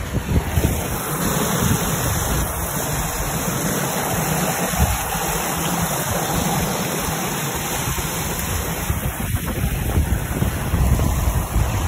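Water rushing along the hull and churning in the wake of a CODE 10 daysailer moving fast under sail, with steady wind noise rumbling on the microphone.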